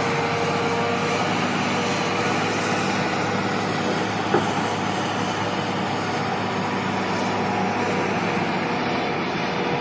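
Heavy machinery running steadily, with one brief sharp sound about four seconds in.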